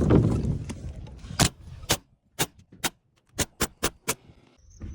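Low rumbling noise for about the first second and a half, then a string of about eight sharp knocks at uneven spacing, from carpentry work on wood framing.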